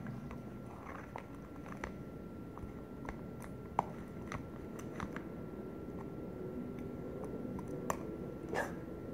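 A utensil stirring a thick, sticky pink gel in a clear plastic tub, giving wet squelching with irregular sticky clicks and scrapes against the plastic.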